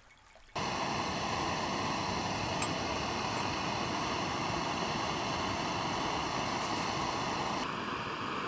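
Gas canister camping stove burning steadily under a lidded pot of water being heated, a constant hiss. It cuts in suddenly about half a second in.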